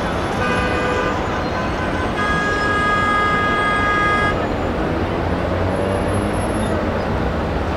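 Heavy road traffic jammed in a city street, with car horns honking over it: a short honk about half a second in, then a long honk held for about two seconds.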